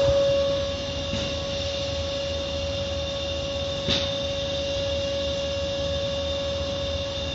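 Car wash machinery running: a steady mechanical hum with a constant high whine over a low rumble, and a single sharp click about four seconds in.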